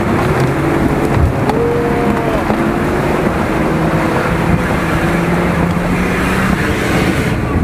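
Nissan Patrol off-roader's engine running steadily under load as it crawls through muddy forest ruts, its note shifting slightly in pitch.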